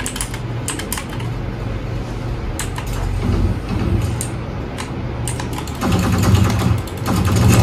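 Redragon Kumara mechanical keyboard with its original clicky Blue switches, keys pressed at irregular intervals during gameplay. The sharp clicks come over a steady low hum.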